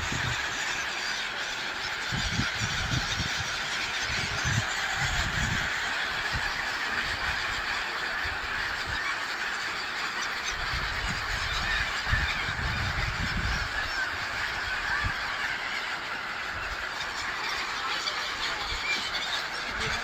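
A large flock of gulls calling all at once, a dense, unbroken din of overlapping cries, with low rumbles coming and going.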